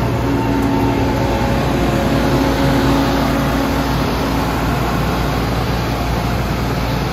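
Wirtgen cold milling machine running: a loud, steady rumble of heavy diesel machinery, with a steady hum that fades out about four seconds in.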